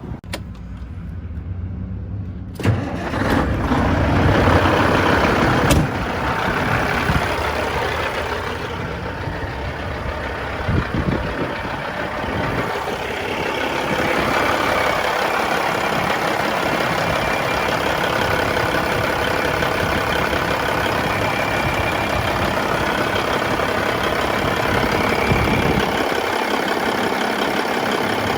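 Heavy truck's diesel engine running. The sound grows much louder about two and a half seconds in, then holds steady.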